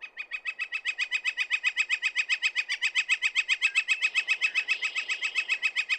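Male northern flicker giving its long call: a loud, rapid series of identical notes, about eight a second, running evenly without a break.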